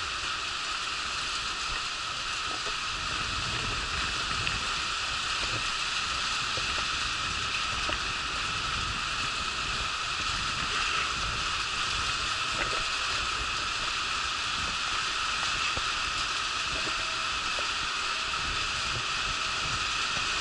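A wheelchair rolling along a concrete station platform: a steady rushing hiss with an uneven low rumble and small knocks from the wheels.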